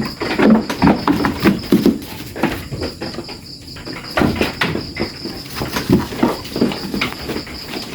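Crickets chirping in a steady high drone, with irregular short thumps and scuffles over it.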